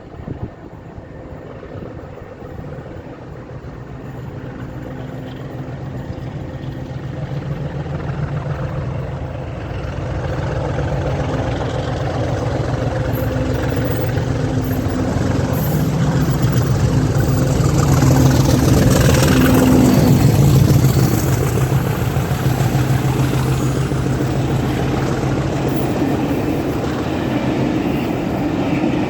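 English Electric engines of Class 50 diesel-electric locomotives working hard under full power, a steady drone growing louder as the train approaches, loudest about two-thirds of the way in, then easing a little as it passes.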